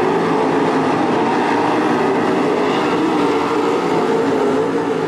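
Several 305 sprint cars' V8 engines running hard together at racing speed, heard as a steady, wavering drone of overlapping engine notes.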